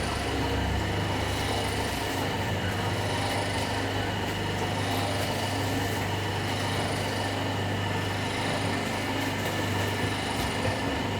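Cream-soap (sabun colek) packing machine running: a steady motor hum with a thin, constant high whine.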